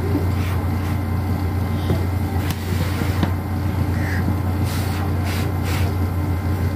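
Steady low hum, like a motor or fan running, with a few faint light taps over it.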